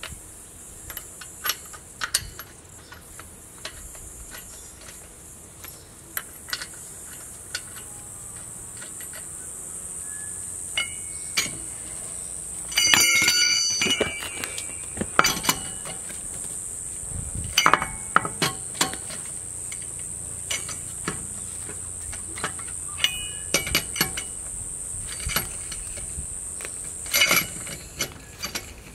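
Metal clinks and clanks of a cross-shaped lug wrench and tools on the wheel nuts as a car wheel is bolted back on, with a loud ringing metal clatter about 13 seconds in. A steady high insect drone runs underneath and stops shortly before the end.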